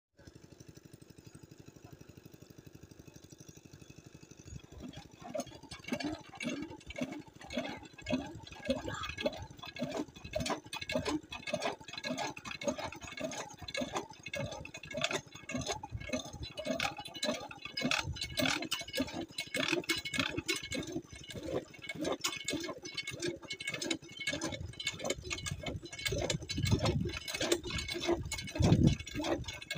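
Cast-iron hand pump worked by its lever in a steady rhythm of about one and a half strokes a second, starting about five seconds in.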